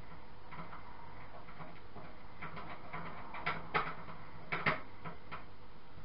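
Light clicks and taps of small parts being handled inside an open desktop PC case while a case fan is fitted, with a few sharper clicks a little past the middle.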